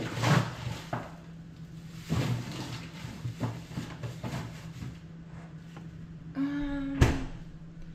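Groceries being packed into a freezer: packaging rustling and knocking at intervals. About six and a half seconds in there is a short steady tone, then a sharp thump.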